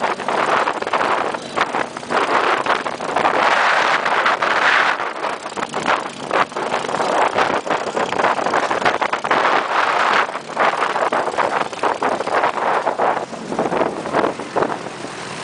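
Off-road vehicle driving over a bumpy dirt track: steady road and vehicle noise with frequent knocks and rattles from the jolts, and wind buffeting the microphone.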